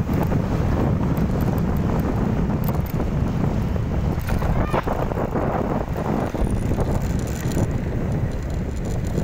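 Wind buffeting a phone's microphone on a moving motorcycle, with a steady low rumble from the ride.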